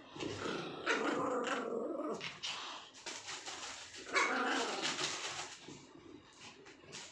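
Pomeranian puppies growling and barking as they play, in two loud spells, one starting just after the start and another about four seconds in.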